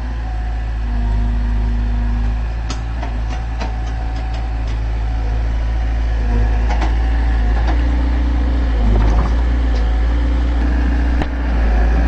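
Excavator's diesel engine running steadily under load, with a held tone that steps up and down in pitch a few times and scattered sharp metallic clanks and knocks from the machine working.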